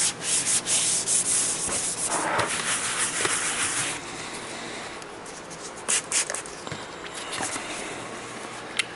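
Gloved hand rubbing over a wet, sanded plastic headlight lens: a rough scrubbing for about four seconds, then quieter handling with a few sharp clicks.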